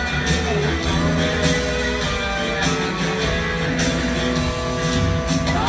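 Live rock band playing an instrumental passage of a blues-rock song, with electric guitars to the fore over bass and drums. A note slides upward near the end.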